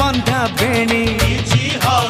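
Odia modern song playing: music with a steady percussion beat and a melody that slides up and down in pitch.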